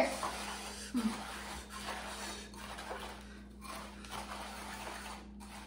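Spoon stirring Rice Krispies cereal through sticky melted marshmallow and butter in a bowl: soft, irregular rustling and scraping.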